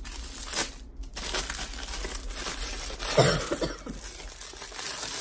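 Clear plastic shrink-wrap crinkling and tearing as it is peeled off a cardboard box, with a few sharp rustles in the first second. A short vocal sound about three seconds in.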